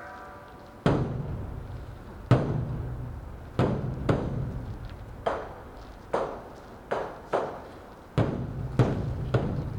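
Beopgo, the large Korean Buddhist dharma drum, beaten with sticks: about ten heavy strikes with a booming low ring after each, in an uneven rhythm that quickens toward the end.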